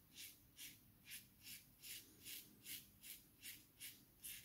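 Open-comb safety razor scraping through lathered stubble on the neck in quick, short strokes, about two and a half a second, faint and even, on the across-the-grain pass.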